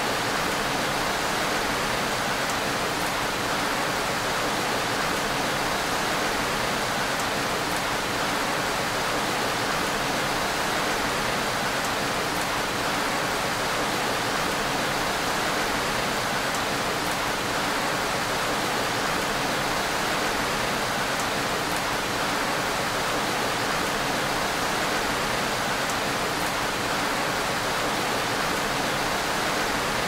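Gentle rain falling steadily on window glass: an even hiss of many drops, with faint scattered ticks of single drops.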